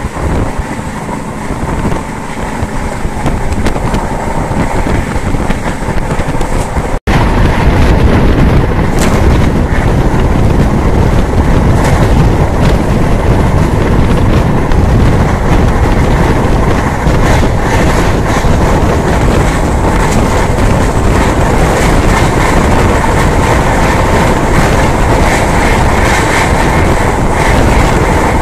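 Express passenger train running at about 130 km/h: steady rumble and rushing air with rail clatter. After a short break about seven seconds in, the running noise is louder.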